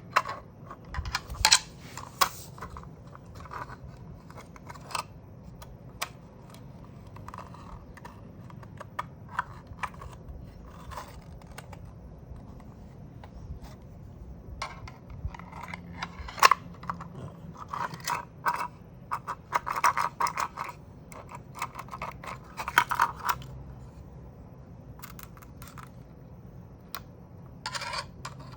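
Irregular clicks, taps and short scrapes of hard plastic and metal parts being handled, as a 3D-printed magazine is worked to push its metal drum-mag spring ring down. The clicks come in clusters, busiest about halfway through and again near the end.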